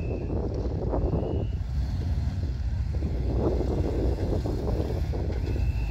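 Harley-Davidson motorcycles' V-twin engines rumbling as a column of bikes approaches, growing gently louder.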